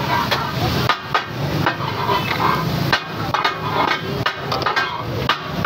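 Steel spatulas chopping and striking a hot iron tawa as fish katakat is cut and mixed, a quick, uneven metallic clatter of about three strikes a second.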